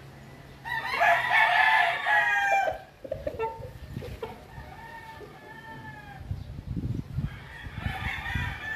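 A rooster crowing: one long, loud crow about a second in, followed by fainter, shorter calls later, with low thumps near the end.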